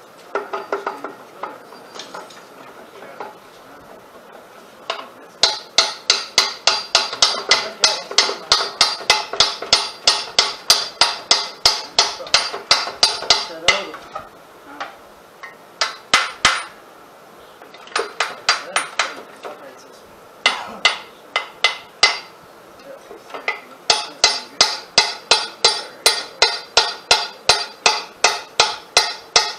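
Hammer blows on the steel rear axle of a John Deere 4300 compact tractor, an attempt to drive the axle out of its housing. A few scattered knocks at first, then long runs of quick ringing metal-on-metal strikes, about three a second, with short pauses between the runs.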